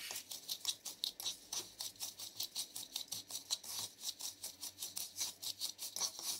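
Metal fork scraping and mashing softened butter into granulated sugar in a bamboo bowl, in quick rhythmic strokes of about five a second.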